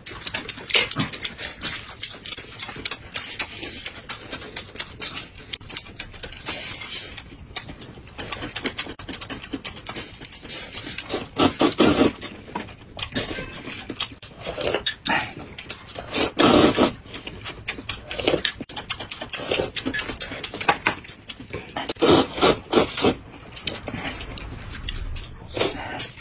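Close-up eating sounds of two people: chewing, lip-smacking and slurping rice-noodle soup, with the light click of chopsticks and a spoon. Several louder slurps stand out in the second half.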